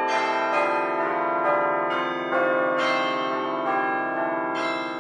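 Bells ringing, struck about twice a second with the tones overlapping and ringing on.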